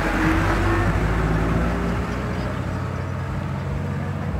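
Diesel engine of a Mitsubishi Colt Diesel dump truck running steadily, a little quieter after about two seconds.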